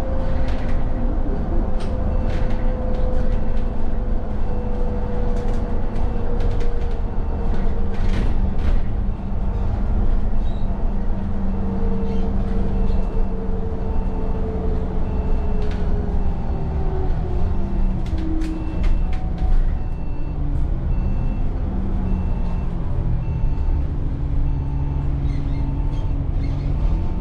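Inside an Alexander Dennis Enviro400 double-decker bus under way: its engine and drivetrain tones fall slowly in pitch, then rise and fall again, with scattered clicks and knocks from the body. A faint repeated beeping sounds through the middle stretch.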